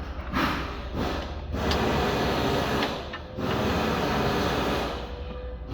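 Loud bursts of mechanical whirring, each one to two seconds long with short breaks between, over a steady low hum.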